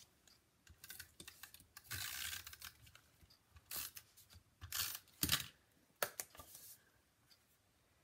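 Tape runner laying adhesive on a piece of designer paper: several short scratchy strokes, the longest about two seconds in.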